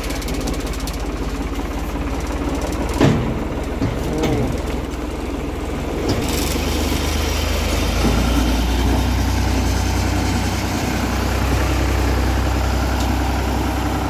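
Small farm tractor's diesel engine running steadily while towing a trailer, a little louder from about six seconds in as it moves off under load. A brief knock about three seconds in.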